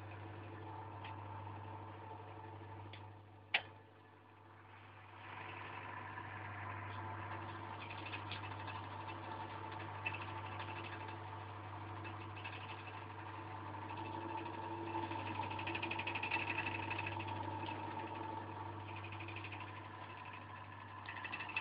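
A 0.45 kW six-pole Marelli three-phase induction motor runs on single-phase current through a capacitor. It makes a steady low electrical hum and a mechanical whirr as its shaft and rubber coupling turn a small DC motor. One sharp click comes about three and a half seconds in, and the running noise gets louder a second or two later.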